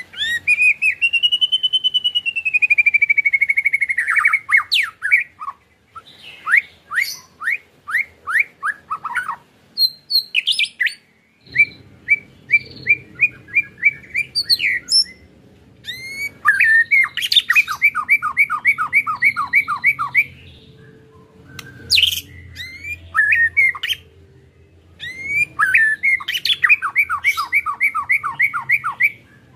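White-rumped shama (murai batu) singing: a long sliding whistle at the start, then several runs of fast repeated notes, the rattling 'ketrekan' song, broken by short pauses.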